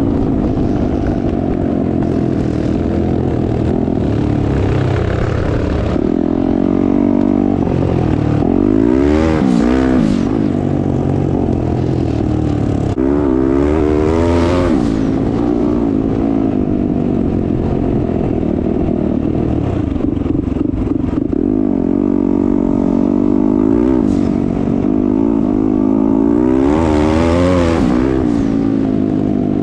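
Turbocharged Yamaha YZ450F single-cylinder four-stroke dirt bike engine running under load while riding, its revs rising and falling again and again as the throttle is worked through the gears. The strongest surges come about nine, fourteen and twenty-seven seconds in.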